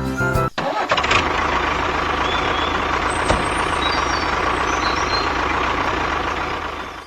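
An engine running steadily, with a few faint bird chirps over it; it fades out near the end.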